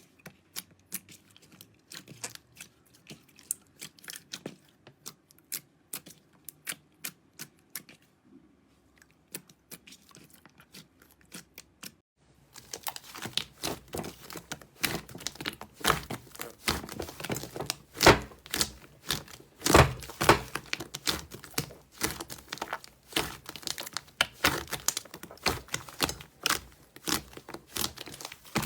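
Slime being squeezed and poked by hand, giving sticky clicks and pops. For the first twelve seconds the clicks come sparse and quiet; then it switches to a dense, louder crackling and popping.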